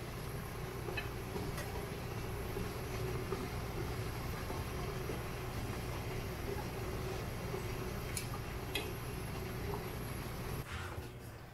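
Steady low hum and hiss from a stainless steamer pot working on the stove, with a few light clicks of chopsticks against the metal steamer basket and plate as steamed vegetables are lifted out.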